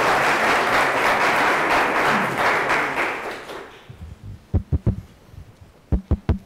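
Audience applauding, dying away about three and a half seconds in, followed by a few dull low thumps in two short clusters.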